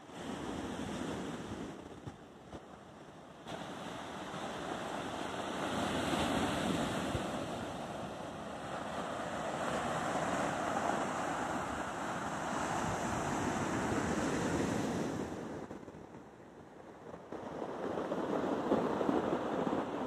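Sea surf breaking and washing over a shingle beach, a steady rushing that swells and eases, dipping twice, with wind buffeting the microphone.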